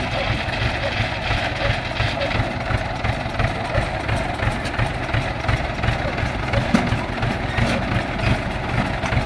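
Tracked rice-harvester engine running steadily at idle with an even low pulsing.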